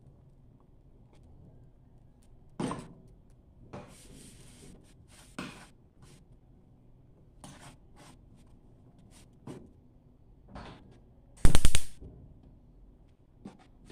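Metal spoon scraping and tapping on a nonstick frying pan as food is spread in it, with scattered clicks, and a short cluster of loud sharp knocks near the end.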